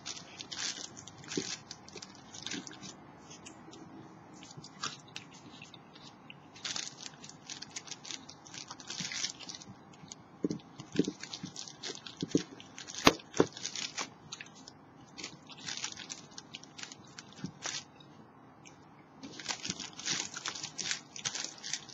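Grapes being eaten from a clear plastic bag: bursts of crackling from the crinkling bag and from chewing, with a few sharp clicks, coming and going every few seconds.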